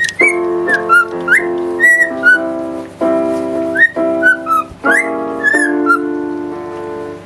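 Ringtone tune: short whistle-like notes that slide up and down, with quick high chirps, over held chords that change every second or so.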